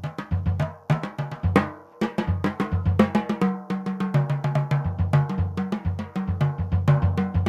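Jazz drum kit solo played with sticks in steady time, using dry, short strokes across the snare, toms and bass drum in quick, dense patterns. The playing stops right at the end, leaving a brief ring.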